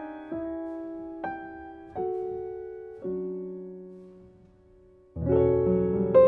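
Solo piano playing slow chords that are struck and left to ring and fade, dying almost away before louder, fuller chords with deep bass notes come in about five seconds in.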